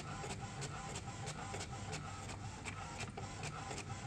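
HP DeskJet Ink Advantage 3788 inkjet printer printing a colour page: the print head carriage shuttling across with a steady mechanical whir and regular clicks about three a second as the paper feeds out.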